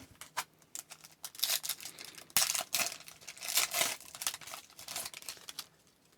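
Crinkling and tearing of a hockey card pack's wrapper being ripped open, in a run of uneven crackles lasting about four seconds.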